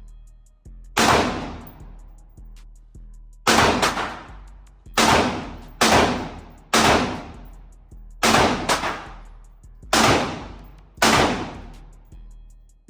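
Gunshots at a shooting range: about ten single shots at uneven intervals, some in quick pairs, each ringing out for most of a second.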